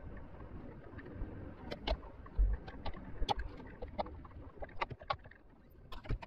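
Land Rover Defender driving slowly over a rough, stony dirt track: a low rumble broken by many sharp knocks and clicks from stones and rattling parts.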